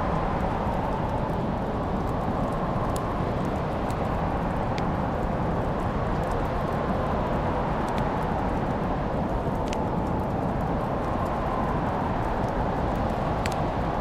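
Wood fire crackling in a fireplace: sharp pops every few seconds over a steady low rushing sound.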